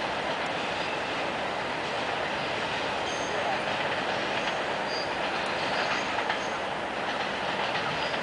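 Autorack freight cars rolling over the track: a steady rumble of steel wheels on rail, with faint brief high wheel squeals now and then.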